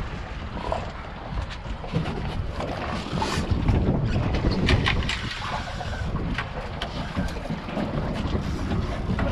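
Wind buffeting the microphone and water slapping against the hull of a center-console boat offshore, with a few sharp clicks and knocks.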